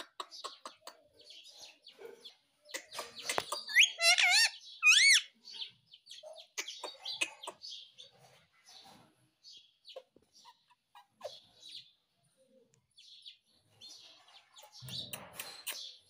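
Indian ringneck parakeet chattering softly to itself with many small clicks and chirps, breaking into two loud warbling calls about four and five seconds in.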